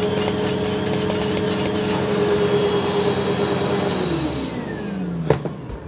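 Sebo upright vacuum cleaner running steadily with a high rush of air through its hose as it sucks dust off a vacuum filter, then switched off about four seconds in, the motor's pitch falling as it winds down, followed by a sharp click near the end.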